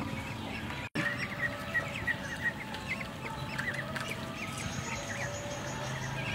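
Birds chirping and calling in quick short notes, with a clucking quality; the sound cuts out for an instant about a second in.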